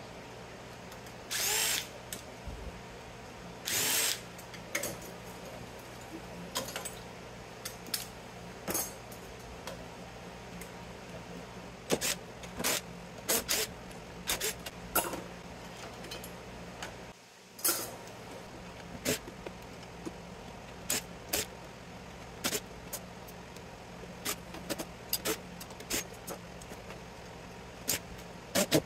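Cordless DeWalt drill-driver running in two short bursts, backing screws out of a variable frequency drive's sheet-metal chassis. Many short clinks and taps of screws and metal parts being handled follow.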